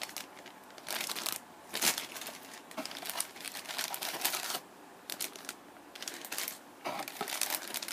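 Clear plastic bag of plastic model kit parts crinkling as it is gripped and lifted out of a cardboard box, in irregular bursts of rustling.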